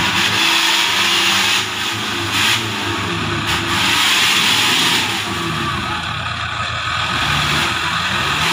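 Off-road 4x4's engine revving up and down repeatedly under load as it claws up a steep, muddy trench.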